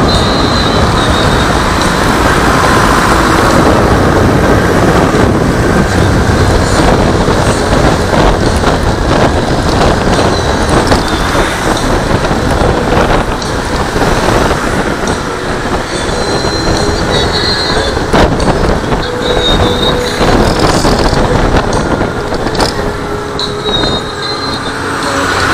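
Steady rush of wind and road noise from a scooter riding through traffic, with faint engine tones and passing trucks mixed in.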